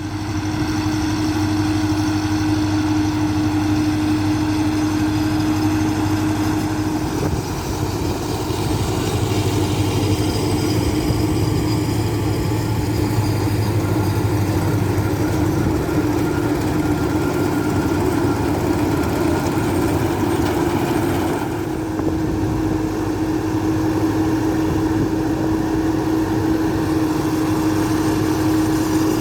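Farm tractor engine running steadily with a constant droning note, working with potato-harvesting machinery. The sound dips briefly and changes about three-quarters of the way through.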